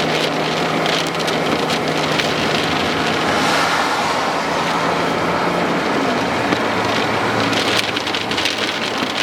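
Rain pelting a moving car, heard from inside the cabin over steady road and engine noise. The engine drone drops in pitch about six seconds in, and sharp ticks on the car body come thicker near the end.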